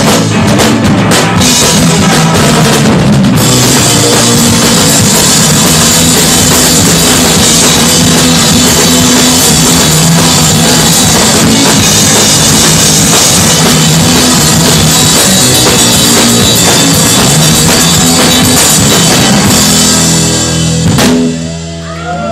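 Live rock band playing loud: a drum kit driving the beat with electric guitar over it. About a second before the end the full band stops on a final hit and the sound drops.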